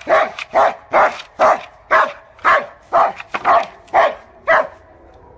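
German Shepherd dog play-barking in a steady run of about ten barks, roughly two a second, stopping shortly before the end.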